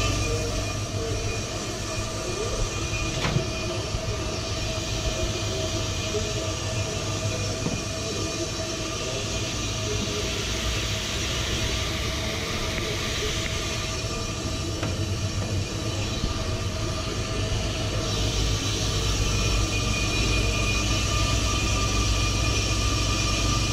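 Ammco 4000 brake lathe running steadily while its cutting tools take a light skim cut, about a thousandth of an inch, across the faces of a front brake rotor. A constant motor hum with a hiss from the cut, and a single brief click about three seconds in.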